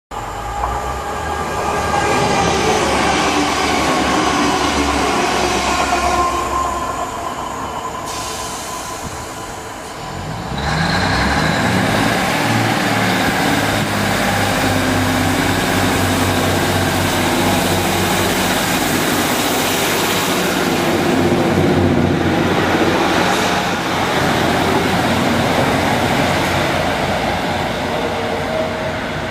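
A Class 150 Sprinter diesel multiple unit with Cummins diesel engines idles at the platform, then about ten seconds in its engines open up as it pulls away. It stays loud as it passes and draws off, fading a little near the end.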